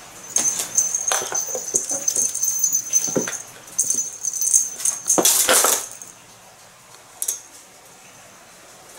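A small collar bell jingling rapidly, with paws and claws scuffling and thumping on a wooden floor, as a cat bats and pounces at a feather wand toy. The jingling and scuffling are loudest in the first six seconds, then stop, with one more short jingle near the end.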